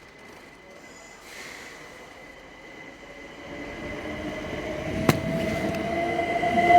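Electric passenger train pulling into the platform, its running noise growing steadily louder over the second half, with a slowly rising whine and a thin steady high tone. A single sharp click comes about five seconds in.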